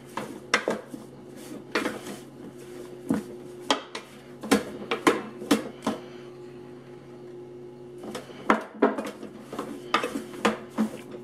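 Wooden spatula stirring cornstarch-coated beef strips in a roaster crock, knocking and scraping against the pot's sides in irregular clicks. The knocks pause for a couple of seconds past the middle, then pick up again. A low steady hum runs underneath.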